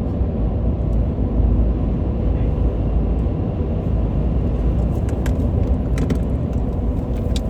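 Steady road and engine rumble heard inside a moving car's cabin, with a few faint clicks near the end.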